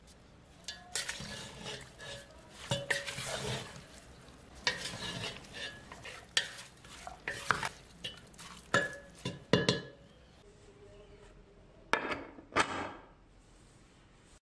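A wooden spatula mixing beef chunks, onions and spice powder in a metal pressure cooker pot: irregular scraping strokes and sharp knocks of the spatula against the pot. Two louder knocks come near the end.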